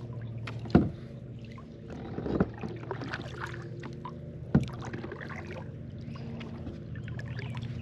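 Small boat or kayak on a creek: sharp knocks of a paddle or gear against the hull, two loud ones and a softer one between, over a steady low hum.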